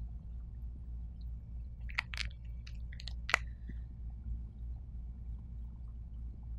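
Dry-erase marker on a whiteboard, a few short squeaky strokes about two seconds in, over a steady low room hum.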